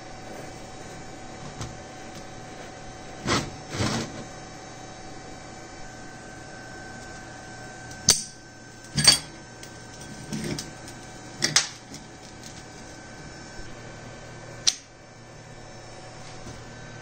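Steel lathe-chuck parts being handled on a metal workbench: about half a dozen short metal knocks and clinks at irregular moments, the loudest about nine seconds in, over a steady workshop hum.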